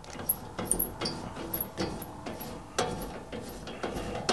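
Two black knobs being unscrewed by hand from the stainless steel firebox door of a wood-fired hot tub: a run of small, irregular clicks and scrapes as the threads turn.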